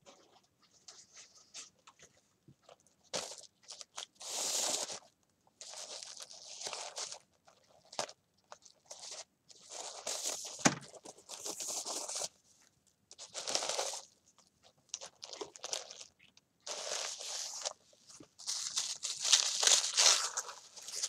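Paper wrapping rustling and crinkling in short, irregular bursts as a small package is untied and unwrapped by hand, with one sharp knock about ten seconds in. The rustling grows denser and louder near the end as the paper is opened out.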